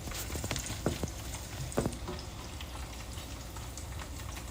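Korean corn dogs deep-frying in hot oil, a steady crackling sizzle, with a few sharp clinks or knocks in the first two seconds.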